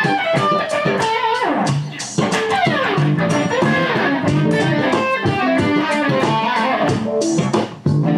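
Electric guitar playing a blues lick, moved to different positions along the fretboard, some notes gliding in pitch, over a low bass line.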